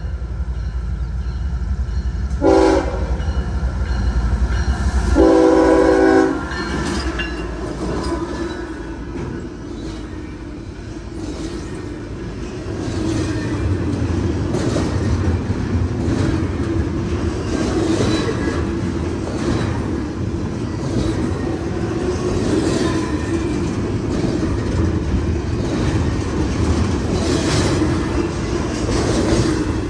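CSX intermodal freight train passing: the diesel locomotive's horn gives a short blast and then a longer one a few seconds in, over the locomotive's low engine rumble. Then the cars roll by with a steady rail rumble and the clickety-clack of wheels over rail joints.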